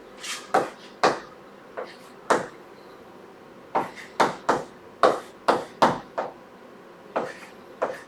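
Chalk writing on a blackboard: a run of about fourteen sharp taps and short strokes at an uneven pace, with a pause of about a second partway through.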